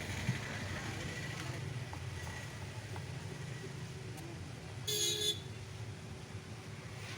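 A short vehicle horn toot about five seconds in, over a steady low rumble of background traffic.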